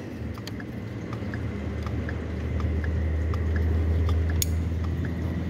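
A steady low mechanical hum that swells slightly over the first few seconds, with faint rapid ticking over it and one sharp click about four and a half seconds in.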